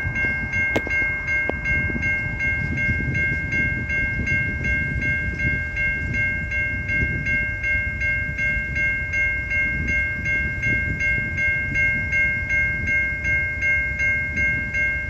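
Level crossing warning bell ringing in a rapid, even string of dings while the boom gates are down for an approaching train, over a low rumble.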